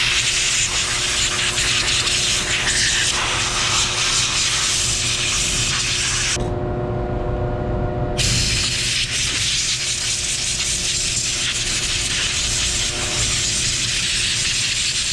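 Compressed air hissing as dust is blown out of an opened power supply, in two long blasts with a break of about two seconds roughly six seconds in. A steady low hum of machinery sits underneath.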